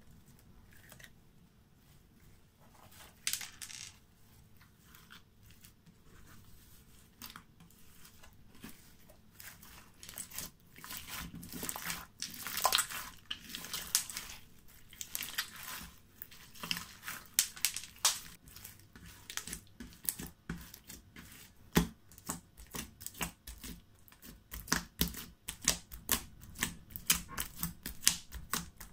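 Slime squished and kneaded by hand, giving crackles and sharp clicks. They are sparse at first and grow denser and louder in the last third.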